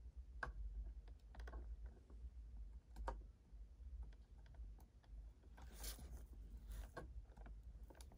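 Faint scattered clicks and rustling of wires and plastic connectors being pushed and tucked into an electric scooter's battery deck by hand, with a longer scraping rustle about six seconds in.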